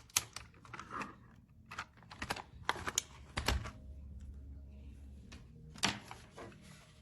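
Irregular sharp clicks and taps of AA batteries and a plastic battery compartment being handled and fitted, with a duller knock midway.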